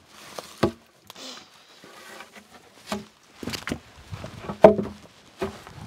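Scattered knocks and thuds, the loudest a little before five seconds in, from rough-sawn cherry boards being handled and set down.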